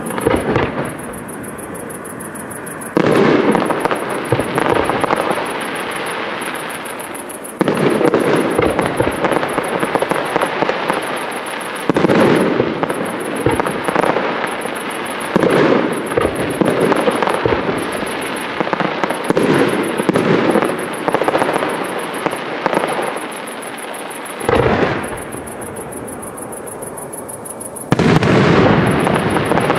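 Aerial fireworks display: shell bursts go off in salvos every few seconds, each with crackling and a long rolling echo that slowly fades.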